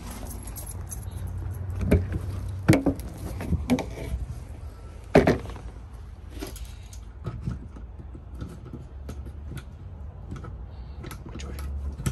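Knocks and thumps of someone climbing into a travel trailer, four sharp ones in the first five seconds or so, then scattered light clicks as a hand works at the battery disconnect switch and its key on a cord, over a low steady rumble.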